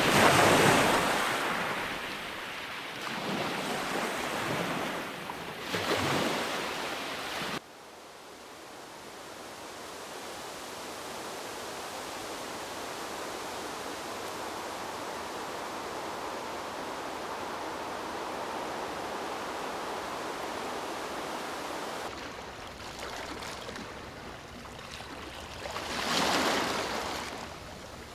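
Ocean waves washing in, rising and falling in swells. About seven seconds in there is a sudden cut to a steady, even rushing hiss. Near the end another wave swells and washes in.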